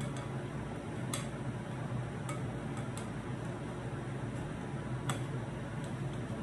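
Soda crackers being crushed into crumbs in a ceramic bowl, a hand utensil grinding and now and then clicking sharply against the bowl, about five clicks at uneven intervals, over a steady low hum.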